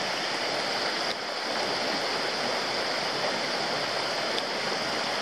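Rocky mountain brook running: a steady rush of water over stones.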